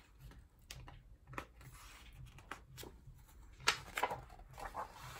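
Hardcover picture book being handled, with a few soft taps and then a page turned near the end: a sharp paper flick followed by a short rustle.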